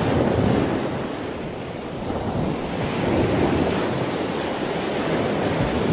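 Ocean surf: a steady rush of wave noise that swells and eases gently, with no music or voice over it.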